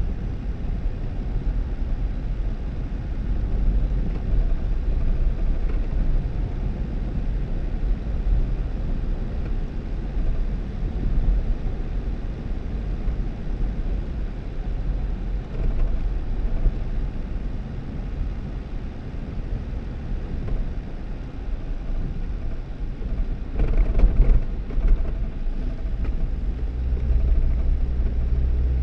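2018 Jeep Wrangler driving on a snow-covered dirt road: a steady low rumble of engine and tyres. A short louder run of knocks and thuds comes near the end, as over a rough patch.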